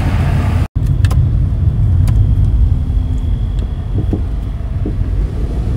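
Car interior road noise while driving: a steady low rumble of engine and tyres on the road, heard from inside the cabin. It is broken by a brief moment of silence under a second in.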